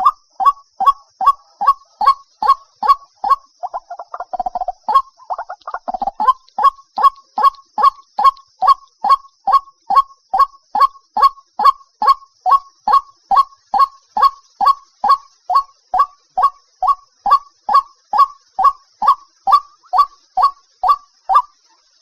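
White-breasted waterhen calling: a monotonous, evenly spaced series of short, loud notes, about two and a half a second, broken by a brief jumble of rougher, overlapping notes around four to six seconds in. A faint steady high hiss runs behind.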